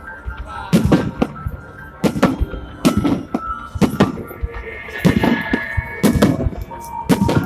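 A fireworks display of aerial shells and rising comets, going off in a run of about a dozen sharp, loud bangs, some in quick pairs.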